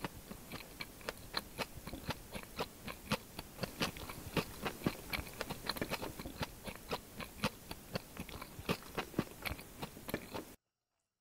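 Close-miked chewing of a mouthful of luchi (puffed fried bread) with ghugni pea curry: a quick run of wet mouth clicks and soft crunches, several a second. It cuts off abruptly about a second before the end.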